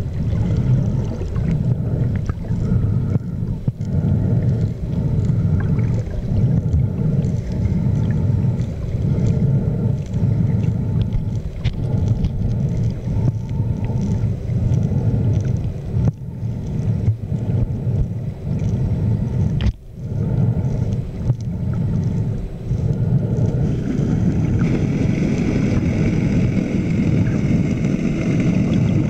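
Continuous low underwater rumble and water churn picked up by a camera in an underwater housing. A higher hiss joins near the end.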